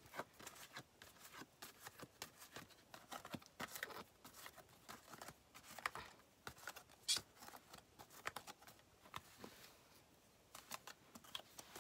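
Faint, scattered clicks and rustles of Yu-Gi-Oh trading cards being picked up and handled.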